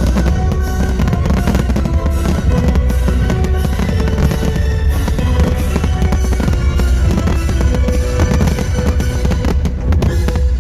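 Fireworks-display soundtrack music with drums, played loud, with the bangs and crackles of fireworks going off throughout.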